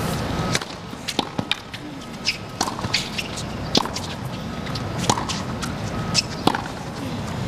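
Tennis rally on a hard court: sharp racket strikes and ball bounces, one every half second to a second, over a low steady crowd murmur.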